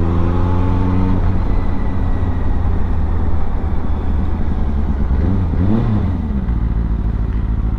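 Benelli TNT 600i's inline-four engine running steadily at low speed on a dirt track, heard from the rider's helmet camera along with road and wind noise. The engine note holds steady in the first second, and a short sound rising and falling in pitch comes about six seconds in.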